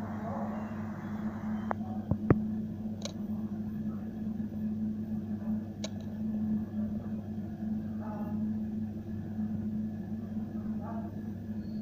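Steady electric hum of an egg incubator's fan and motor, with a few sharp clicks in the first half.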